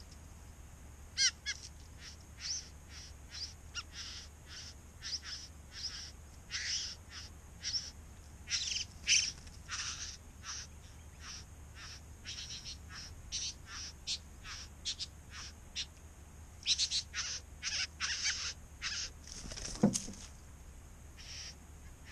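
Male satin bowerbird's courtship song at his bower: a long series of short, high calls, about two a second, growing busier near the end, with one loud note sliding steeply down in pitch about twenty seconds in.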